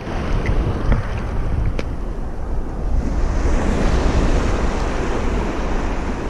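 Wind buffeting the microphone over choppy sea water, with waves lapping; a steady rushing noise throughout.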